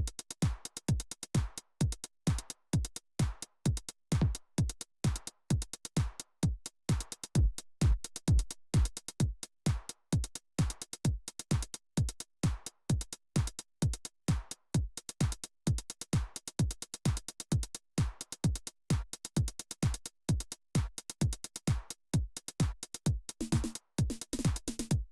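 Roland MC-707 groovebox playing a techno drum-machine pattern: a kick drum that drops in pitch on each hit, about two a second, with short hi-hat ticks between. A low synth tone comes in near the end.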